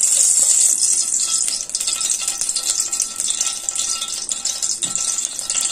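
Cooking oil poured from a spoon into a hot aluminium pot, hissing steadily with fine crackling.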